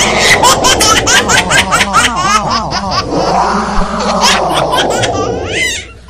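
Laughter added over the clip: a long run of quick 'ha-ha' pulses, about four or five a second, that fades out near the end.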